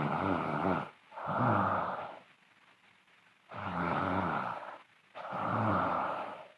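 A sleeping girl snoring loudly: two breaths, each giving a pair of snores about a second long, with a longer pause between the pairs.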